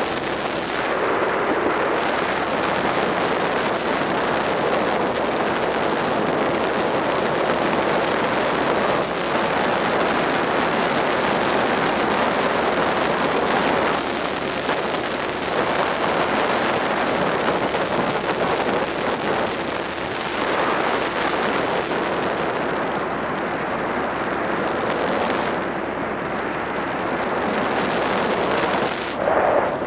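Suzuki SV650 90-degree V-twin motorcycle riding along at speed, a steady rush of wind and road noise over a faint engine drone.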